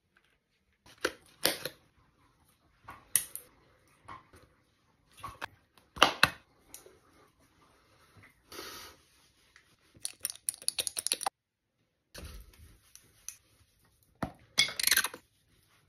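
Scattered close handling noises, short clicks, taps and rustles with gaps between, including a quick run of clicks about ten seconds in and a low bump about twelve seconds in.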